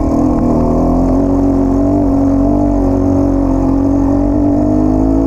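Enduro dirt bike engine pulling at steady, fairly high revs under the rider, its pitch sagging a little and then climbing again near the end.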